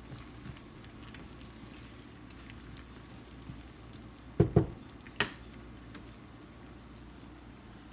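Rice, onion and garlic frying in oil and butter in a pan with a soft, steady sizzle. Three sharp knocks a little past halfway, two close together and then one more.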